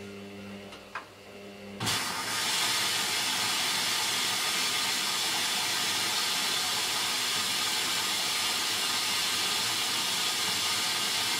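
Hoover DYN9144D3X washing machine taking in water: a low hum and a click, then a sudden, loud, steady rush of water through the inlet valve and detergent drawer that cuts off abruptly as the valve closes.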